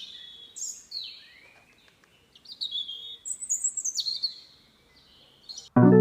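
Birds singing: a run of high chirping and warbling phrases with quick pitch slides. Near the end, plucked-string music starts suddenly.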